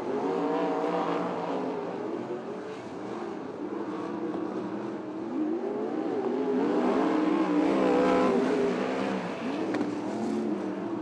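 Several non-winged sprint car engines racing together, their pitch rising and falling as the cars lift and accelerate through the turns. The sound is loudest about seven to eight seconds in.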